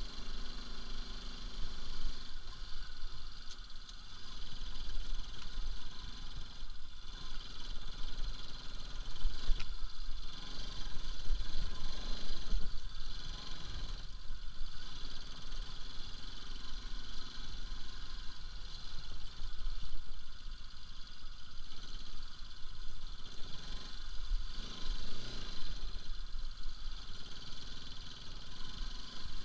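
Bajaj Pulsar RS200's single-cylinder engine running at low speed over a rough dirt track, under a constant deep rumble from the bumpy ride, with a brief rise in engine pitch near the end.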